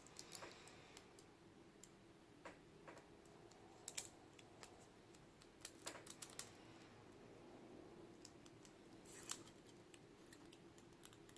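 Faint, scattered small metallic clicks and taps from a Mul-T-Lock Jr. lock core being handled and shimmed apart, over a faint steady hum. The clicks come irregularly, a few close together around four, six and nine seconds in.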